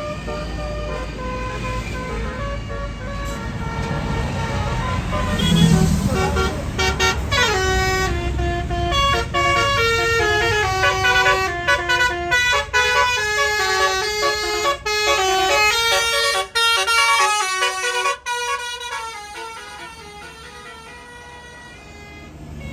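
Tour bus's Basuri telolet horn playing a fast tune of short stepping notes for about ten seconds, over the rumble of the bus engine, which is loudest before the tune begins.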